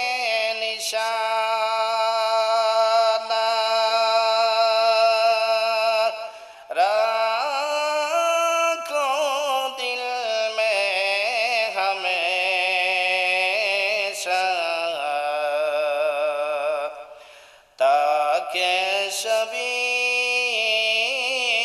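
A man's voice chanting Arabic devotional verse in praise of the Prophet into a microphone. He holds long, drawn-out notes with wavering, ornamented pitch, broken by two short breaths, about a third of the way in and near the end.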